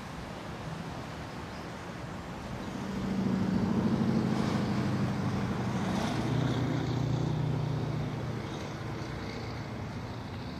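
A motor vehicle passing by: its engine swells from about two and a half seconds in, is loudest for a few seconds with its pitch dropping about halfway through, then fades away by about eight seconds, over a steady outdoor hiss.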